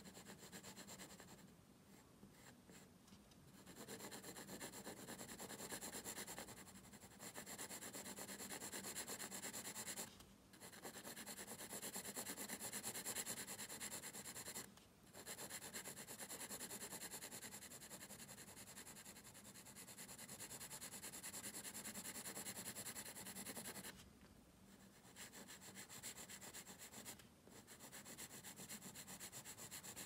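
Carbon pencil shading on grainy Canson Mi-Teintes paper: a dry, steady scratching made of many quick short strokes, broken by brief pauses where the pencil lifts, about 10 and 15 seconds in and again near 24 seconds.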